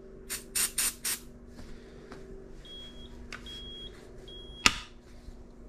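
Four short hissy bursts, then a 2006 Universal Security Instruments smoke alarm giving three short, faint, high beeps about half a second apart in the three-beep alarm pattern. Its horn is weak: the sensor trips but the horn fails the test. A sharp click comes near the end.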